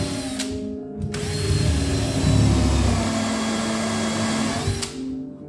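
Electric drill running, with a steady whine. It stops briefly about half a second in, then runs again for about four seconds before stopping near the end.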